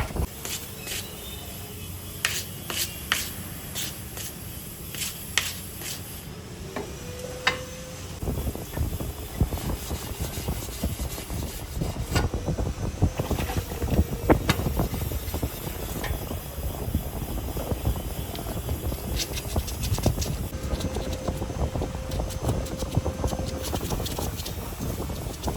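Workshop work on a metal part: sharp clicks and taps over a steady rumbling noise that grows louder about a third of the way in, with a brief steady tone a few times.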